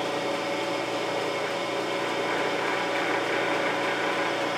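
Landis surface grinder running steadily, its wheel spinning free after sparking out: an even mechanical hum with a steady whine in it.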